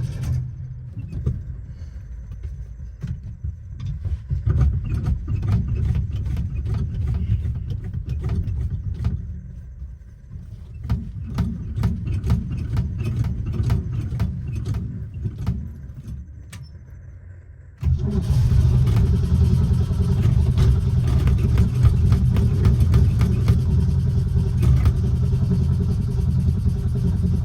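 An old Ford Falcon's engine being cranked on the starter, turning over and sputtering with irregular pops, and a hard start with pedal pumping. About two thirds of the way through it catches and runs loudly and steadily.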